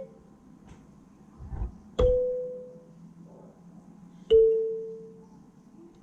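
Kalimba tines plucked twice, about two seconds apart, each note ringing out and fading away. The second note is slightly lower and louder.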